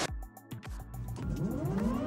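Helicopter turbine engine spooling up, a whine of several tones rising steadily in pitch that starts about a second in, after a sudden cut.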